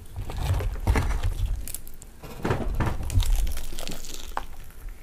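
Crispy fried chicken being picked out of its box and handled, the crust crackling and crinkling, over low bumps of handling; the piece is then raised to the mouth and bitten.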